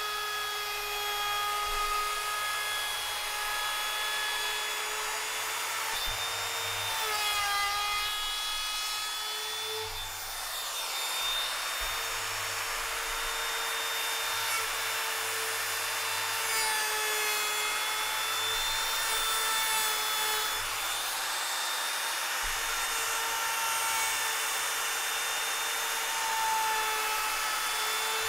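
Handheld electric power tool running steadily on wood, a motor whine over a rasping noise, the whine dipping in pitch now and then as the tool is pressed into the work.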